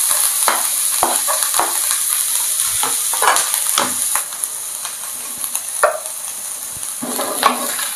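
Diced onion and garlic sizzling in hot olive oil in a frying pan, just added to start the sauté, with scattered clicks and taps as a wooden spoon stirs them. The sizzle eases slightly about halfway through.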